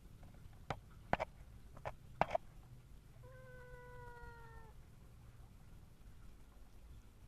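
A few sharp clicks or taps, then a domestic cat meows once: a drawn-out call, sliding slightly down in pitch.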